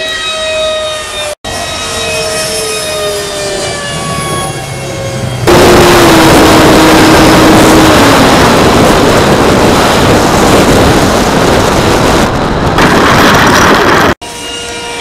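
Electric ducted-fan RC jet whining as it flies past, its pitch gliding down. About five seconds in it turns much louder with a wind-like rush, heard from a camera on board the jet coming in to land, the fan tone dropping as the throttle is cut while it rolls out on the runway. Near the end the fan whine is heard again from the ground.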